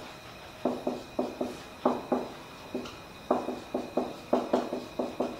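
Marker pen writing on a whiteboard: a quick run of short knocks and strokes, about four a second in uneven clusters, the board ringing briefly after each.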